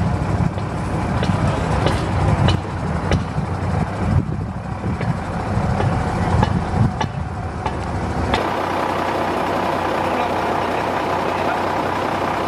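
A heavy engine running with a low rumble, as of a crane hoisting a net of bales, with scattered knocks and clicks. About eight seconds in the sound cuts to a steadier, smoother engine hum.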